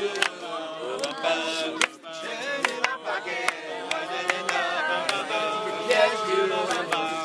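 A men's a cappella group sings backing harmonies, with a young girl's voice singing the lead. Sharp hand claps keep a steady beat, a little faster than one a second.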